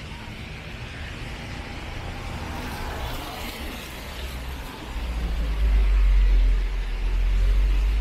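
Street traffic on a rain-wet road: a car passes with a swelling tyre hiss about three seconds in. From about five seconds in, a deep low rumble of a heavier vehicle grows loud and holds.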